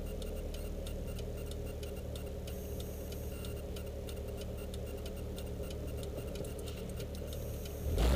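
Toyota 4A-GE four-cylinder engine idling, heard from inside the AE92 Corolla's cabin through solid 90A polyethylene engine mounts: a steady low hum with a fast, regular light ticking over it. Right at the end the engine revs up as the car pulls away.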